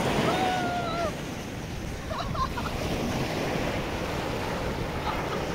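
Sea surf washing on the beach with wind rushing over the microphone, a steady hiss. A brief faint pitched call sounds in the first second.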